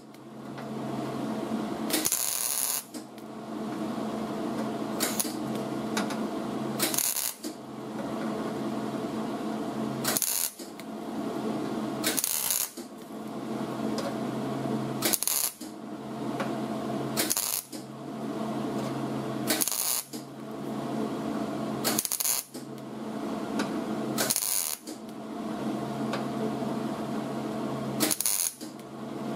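MIG welder laying a series of short spot welds on a sheet-steel rocker panel, set low for thin metal: about a dozen crackling bursts of roughly half a second each, two to three seconds apart. A steady hum runs underneath.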